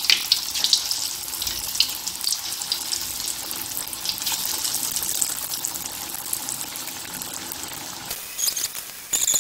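Hot oil sizzling and crackling in an aluminium wok as pieces of grated-cassava getas deep-fry over medium heat: a steady hiss with many small pops, thinning out near the end.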